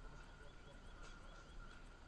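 Near silence with faint bird chirps: a quick run of about five short, high notes.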